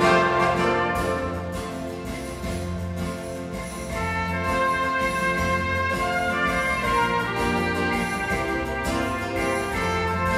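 Orchestral music with prominent brass, played back over a pair of M&G Audio V8F floor-standing speakers driven by a Line Magnetic LM-508IA valve amplifier and heard in the room. The music eases back about two seconds in and swells again around four seconds.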